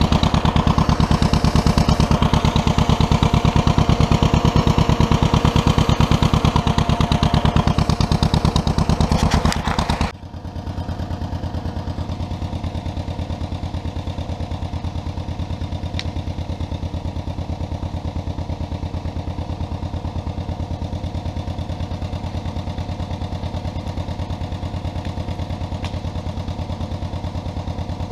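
1957 John Deere 420 crawler's two-cylinder gas engine running hard with a steady pulsing beat and clatter, then about ten seconds in dropping abruptly to a quieter, slower-sounding run for the rest.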